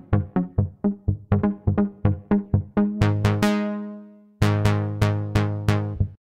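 Cherry Audio Octave Cat software synthesizer, an emulation of the 1976 Octave CAT duophonic synth, playing a pluck preset: a quick run of short, decaying plucked notes, about five a second, then a longer, brighter note about three seconds in that fades away. Bright plucks follow at about three a second until the sound cuts off suddenly near the end.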